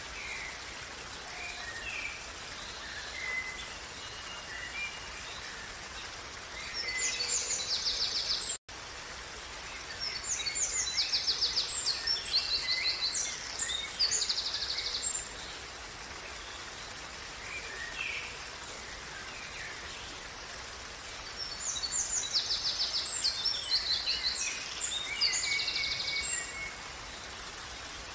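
Steady rushing of a small running stream, with songbirds singing over it: three bouts of fast, high trilled song (the first two close together, the third near the end) and scattered short chirps between them. The sound cuts out for an instant right after the first bout.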